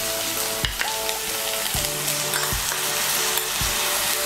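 Onions and tomatoes sizzling in oil in a kadai as a wet paste of ground turmeric, cumin, chilli and coriander goes in and is stirred with a spatula, with a few knocks of the spatula against the pan.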